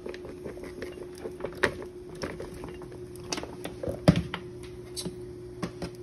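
Sliced onions and bell peppers being tipped from a metal mesh strainer into a skillet: scattered light taps and clicks, with one louder knock about four seconds in, over a steady hum.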